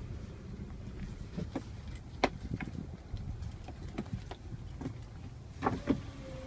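A car's steady low rumble with scattered sharp clicks and knocks, the loudest a little over two seconds in and a pair near the end.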